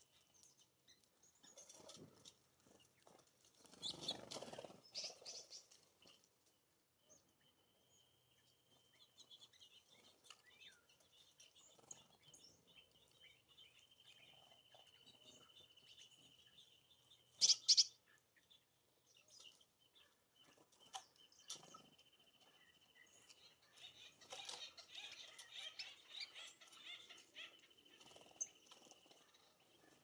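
Wild songbirds around a feeder: scattered chirps and short calls, with a brief rustle about four seconds in and one loud, sharp high call a little past halfway. A faint, thin, steady high tone comes and goes behind them.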